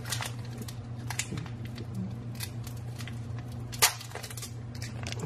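Foil Pokémon booster pack wrapper crinkling and crackling in the hands as it is worked open, a run of small scattered clicks with one louder snap nearly four seconds in.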